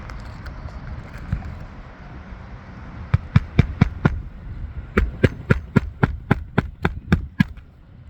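Hammer blows on a shingle roof in two quick runs: about five strikes just after three seconds in, then about ten more from about five seconds in, a few a second. Low wind rumble on the microphone underneath.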